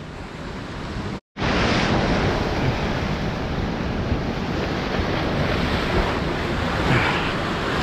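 Ocean surf breaking against a rocky shore with wind buffeting the microphone, a steady rush of noise. The sound drops out completely for a moment about a second in.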